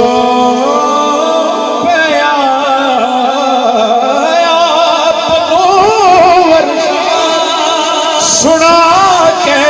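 A man singing a Punjabi devotional kalam (naat) into a microphone, drawing out long ornamented notes whose pitch wavers and glides between the words of the refrain.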